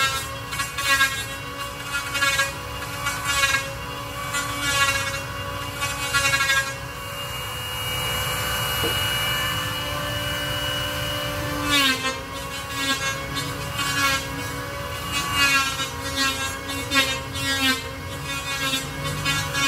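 Handheld power tool worked along a wooden plank in repeated strokes, about one a second, its motor hum steady underneath. In the middle it runs free for a few seconds with a steady high whine, then the motor note dips as it bites into the wood again and the strokes resume.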